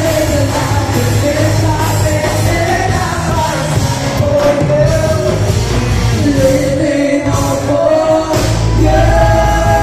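Rock-style band music with a singer: a sung melody over bass and drums. About eight and a half seconds in, the voice settles on a long held note over a heavy bass.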